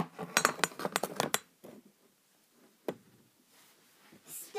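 Handling clatter: a quick run of clicks and knocks for about a second and a half, then a single sharp click about three seconds in.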